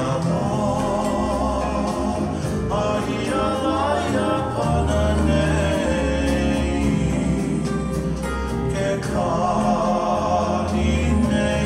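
Hula song: singing in phrases over steady instrumental backing.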